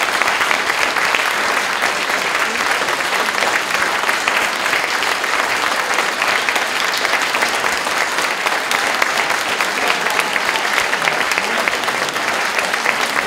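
Audience applauding steadily: many hands clapping at once, with no break.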